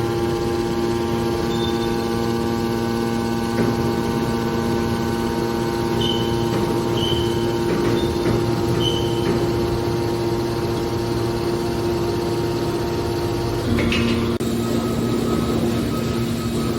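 Hydraulic scrap-metal baler running: its electric motor and hydraulic pump give a steady, even hum. About fourteen seconds in the tone shifts as the load changes. A few short, high chirps come midway.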